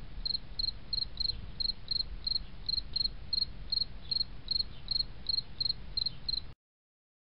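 An insect chirping in a steady rhythm, about three high chirps a second, over a low rumble. It cuts off suddenly near the end.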